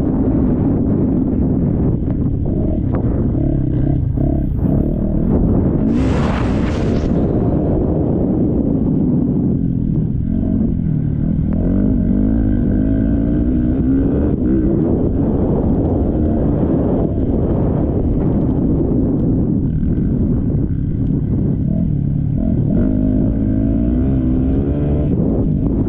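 Motocross bike engine revving, its pitch rising and falling over and over as the throttle opens and closes. A brief hiss about six seconds in.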